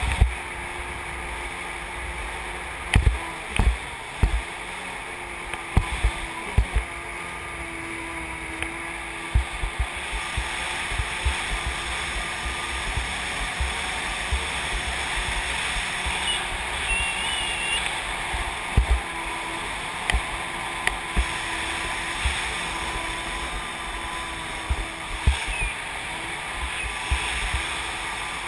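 Kawasaki 550 stand-up jet ski's two-stroke engine running at a steady, even pitch, heard from a camera mounted on the craft, with water noise and occasional short low thumps.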